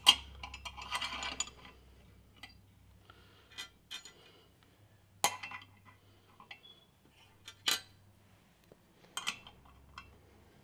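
Metal parts clinking: steel turbo clamp plates and bolts being picked up and set against the cast aluminium compressor housing of a Garrett GTX3582 turbocharger. About five sharp clinks are spread over several seconds, with a flurry of lighter clicks near the start.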